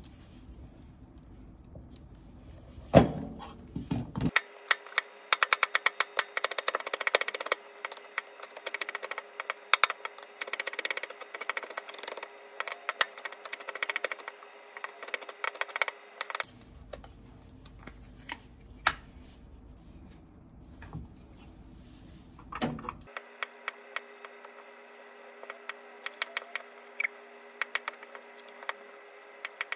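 Many quick, light clicks and taps, coming in fast runs for much of the time and more sparsely near the end, over a faint steady hum.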